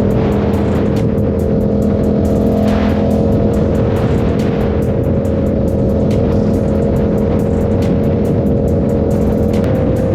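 Loud sound of a 2023 Yamaha R7's 689 cc parallel-twin engine through an M4 aftermarket exhaust, running at a steady cruising speed with a low growl. A brief rush of noise swells about three seconds in.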